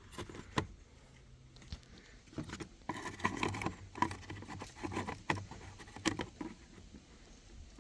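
Handling noises: scattered light clicks and rustling as small parts are moved about.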